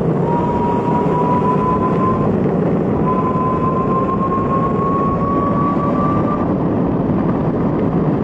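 Inboard electric skateboard rolling: a steady rush of wind and wheel noise, with a thin motor whine that rises slowly in pitch, breaks off twice and stops about six seconds in.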